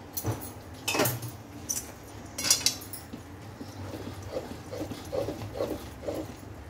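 Wooden rolling pin stirring and pressing rice flour into hot water in a steel kadhai, knocking and scraping against the pan, the strongest knock about two and a half seconds in. In the second half a quick series of short squeaks follows.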